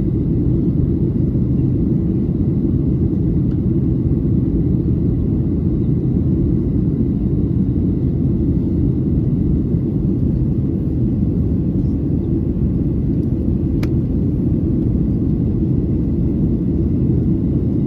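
Steady low rumble of engine and airflow noise inside the cabin of a Boeing 737-800 in flight, unchanging in level, with a single brief click about fourteen seconds in.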